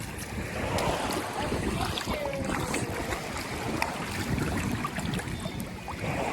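Sea waves washing on the shore, with wind buffeting the microphone and a few small clicks.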